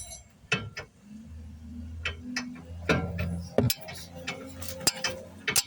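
Metal clinks and knocks of hand tools on a car's brake caliper bracket bolts, a few sharp strikes a second or so apart, over a low steady hum.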